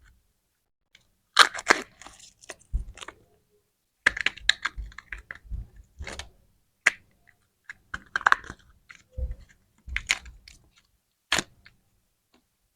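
Lollipop and candy packaging handled up close: clusters of sharp clicks, taps and plastic crackles, with silent gaps between them.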